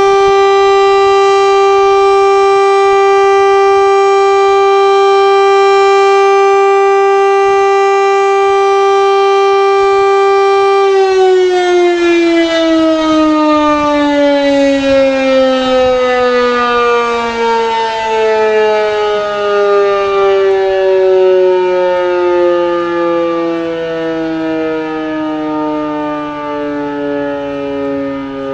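KIRKE 400 civil defence siren sounding its steady test tone, which about eleven seconds in begins a slow, falling wind-down in pitch.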